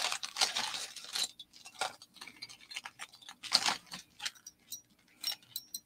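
Scattered light clicks and small metallic rattles of earrings on their display cards being picked up and handled.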